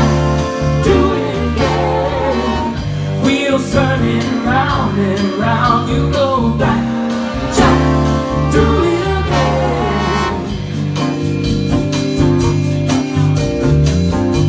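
Live band playing a song: female vocals over electric guitar, bass guitar, drums and horns, with a steady drum beat. The singing drops out after about ten seconds while the band plays on.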